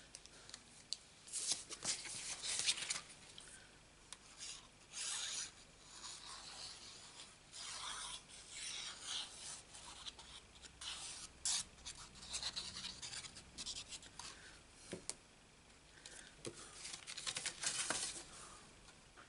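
Sheets of paper and cardstock sliding and rubbing against each other as they are picked up and lined up, in irregular short scraping rustles, with a small tap a little before the end.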